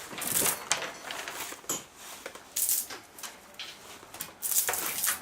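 Irregular clicks, rattles and scrapes of copper wire and hand tools being handled while stripping wire.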